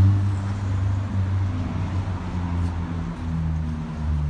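Motor vehicle engine running with a low, steady drone.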